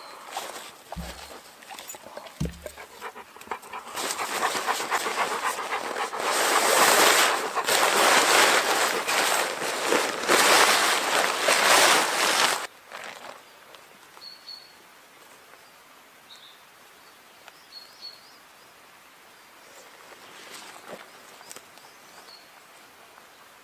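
A nylon tarp rustling and crinkling loudly as it is pulled from its stuff sack and unfolded, with two dull knocks near the start and a dog panting close by. The rustle cuts off abruptly about thirteen seconds in, leaving a quiet spruce-wood background with a few faint bird chirps.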